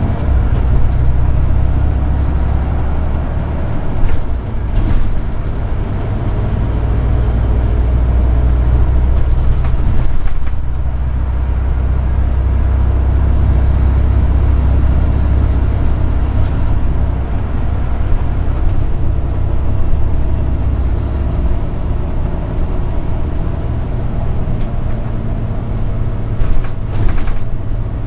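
Cummins ISX12 diesel engine of a commuter coach pulling at road speed, a deep steady drone that dips briefly about ten seconds in and eases off near the end. A few short knocks are heard, and a faint high whine comes and goes.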